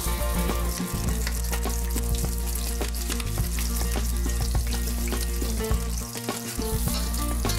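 Dall sheep meatballs browning in hot oil in a stainless steel skillet, sizzling steadily.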